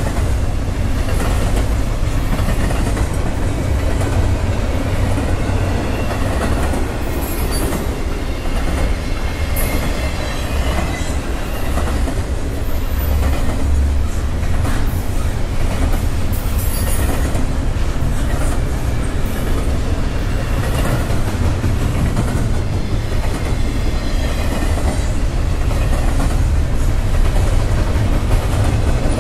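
Double-stack container freight train's well cars rolling past at a steady pace: a continuous low rumble of steel wheels on rail, with repeated clacking as the wheels pass over rail joints.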